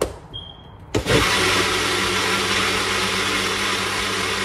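A knock, then about a second in an electric countertop blender starts and runs steadily at full speed, blending a smoothie.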